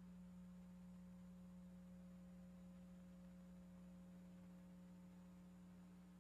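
Near silence with a steady low hum and a faint higher tone above it.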